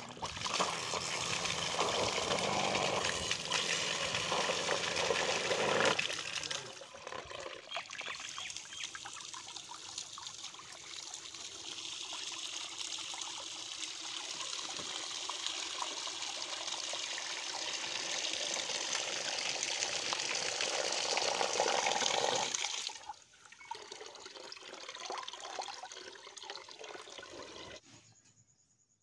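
Water gushing and splashing from the outlet of a homemade 12 V pump built on a 775 DC motor, spraying into a plastic bucket and pouring onto wet ground. It is loudest for the first six seconds, runs steadily until about twenty-three seconds in, then weakens and stops just before the end.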